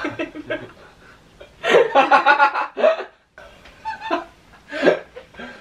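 A woman laughing in several short bursts, the loudest a pulsing run of laughter about two seconds in.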